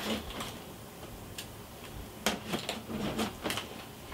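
Light clicks and taps from a large cardboard toy box and its packaging being handled and opened, mostly in a cluster from about two seconds in.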